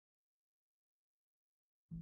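Silence, with the first faint sound of the song coming in right at the very end.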